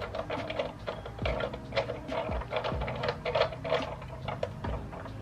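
Rapid clicking and rattling of ring light kit parts being handled and fitted together, with a few dull knocks.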